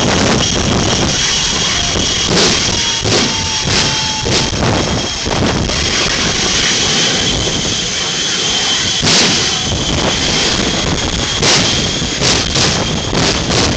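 Jet engine running at a steady pitch: a loud, even rushing noise with a high whine held throughout, broken by short surges every second or so.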